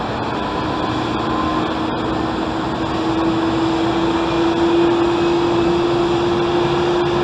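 Jet engines of a Boeing 737-700, CFM56-7B turbofans, running with a steady rushing noise and a humming tone that rises slowly in pitch and grows louder.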